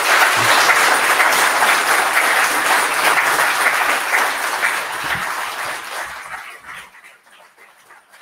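Audience applauding, the clapping fading out about six to seven seconds in.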